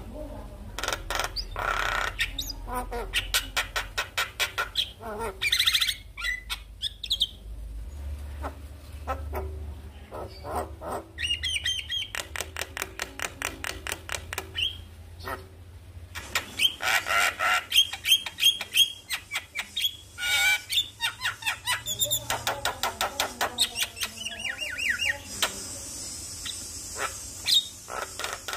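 Javan myna singing: long runs of rapid, repeated chattering notes broken by short whistles.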